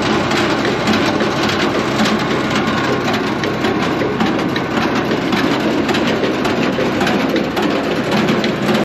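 Hakki Pilke Falcon 35 firewood processor running off a Massey Ferguson tractor's power take-off, the tractor engine and the processor's conveyor together making a steady, loud, clattering din. It cuts off abruptly at the end.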